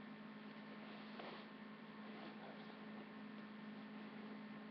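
Steady electrical hum with a faint hiss underneath: the background noise of a webcam microphone, with no other clear sound.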